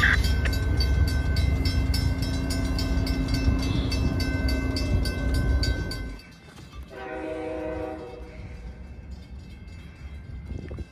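Passing train running close by with a heavy low rumble and a fast, even clicking over it, which cuts off about six seconds in. A train horn then sounds once, briefly and more quietly, about seven seconds in.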